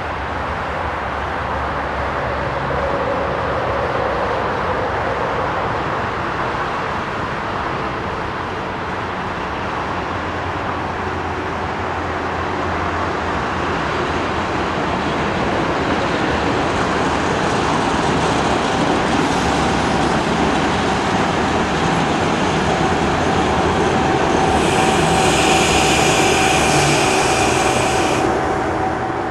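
SNCF BB 9600 electric locomotive and its coaches running into the station, the rumble on the rails slowly growing louder. A steady whine comes in during the second half. For a few seconds near the end there is a high, piercing brake squeal as the train slows to a stop.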